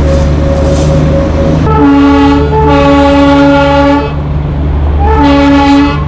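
Darjeeling toy train's locomotive whistle blowing twice, a long blast of about two seconds and then a shorter one, over the steady running rumble of the moving train.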